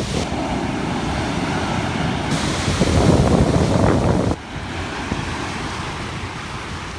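Ocean surf breaking, with wind buffeting the microphone. The sound changes abruptly about two seconds in and again about four seconds in, like cuts between shots.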